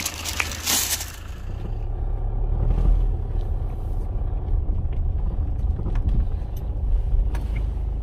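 Low, steady rumble of a Kia New Sportage heard from inside the cabin while it drives, building over the first few seconds and then holding. A brief rustle comes at the start.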